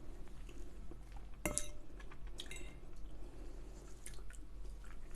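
Close-miked chewing with soft wet mouth sounds. A sharp ringing clink comes about a second and a half in and another about a second later: cutlery knocking on a plate.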